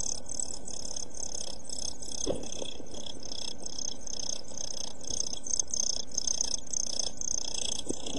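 Week-old blue tit nestlings begging inside the nest box: high-pitched chirping, rapidly repeated and continuous. There are a couple of soft knocks as the adult bird moves about in the box.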